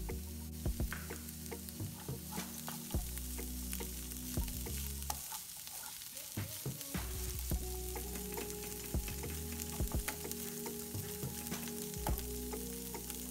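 Peas and chopped onions sizzling in a nonstick frying pan, with a wooden spatula scraping and knocking against the pan as they are stirred.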